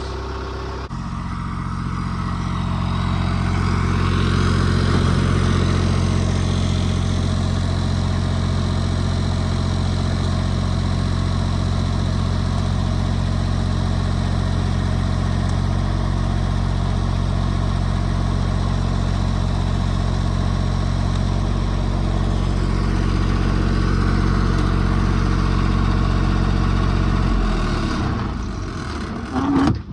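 A light tower's engine running steadily, then winding down and stopping near the end as the tower is shut off after its lights.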